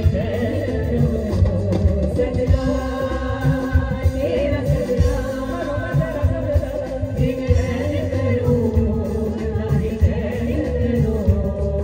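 A woman singing a melodic, ornamented vocal line into a microphone, backed by a live band with drum kit, electric guitar, bass and keyboards, amplified through a PA.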